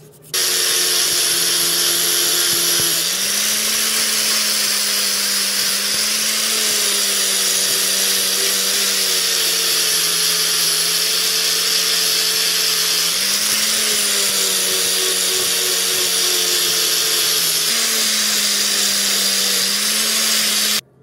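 Angle grinder with an abrasive disc running against the steel jaws and handles of rusty needle-nose pliers, a loud steady motor whine over a harsh hiss. It starts about half a second in, the motor's pitch shifts up and down a few times, and it cuts off sharply at the end.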